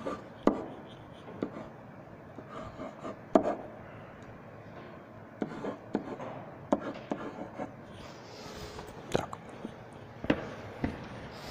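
A pen tapping and scratching on an interactive whiteboard while formulas are written, giving irregular sharp clicks with softer strokes between.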